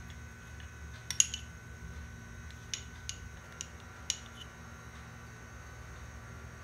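A metal spoon clinking about six times as a teaspoon of desi ghee is scooped out and tipped into a pan: light, sharp clicks between about one and four seconds in, over a faint steady hum.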